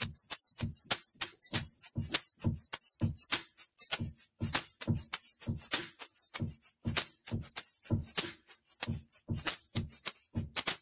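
Egg shaker being shaken in time over a looped drum beat playing back from a Boss RC-505 MkII loop station: steady low kick and snare hits under a quick run of crisp shaker rattles. The shaker is being layered into the loop.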